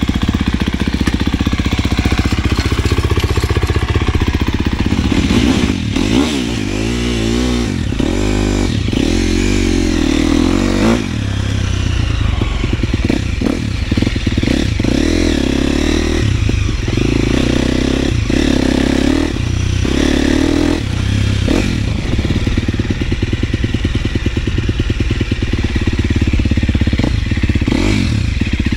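KTM 250 SXF motocross bike's 250 cc four-stroke single-cylinder engine running as the bike is ridden, its pitch rising and falling repeatedly with the throttle, with some clatter.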